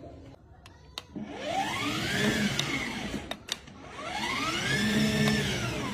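White ride-on toy Land Rover Discovery car revving up and back down twice, each rise and fall lasting about two seconds, with two sharp clicks between the revs.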